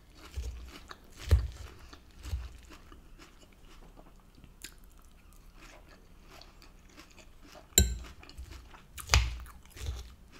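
A person chewing a mouthful of lettuce and rocket salad, with crisp crunchy bites now and then. Among them are a few sharp clicks of a metal fork against a ceramic bowl.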